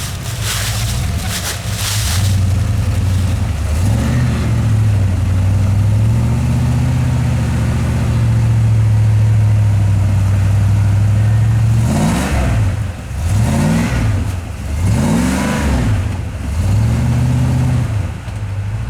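Rock crawler's engine running under load and revved in repeated throttle bursts, its pitch rising and falling several times, with a run of quick surges in the second half, as the rig keeps getting hung up on a log.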